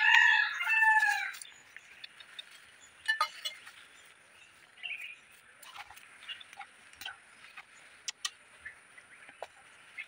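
A rooster crows once, about a second and a half long. After it come faint scattered bird chirps and a few light clicks over a faint steady hiss.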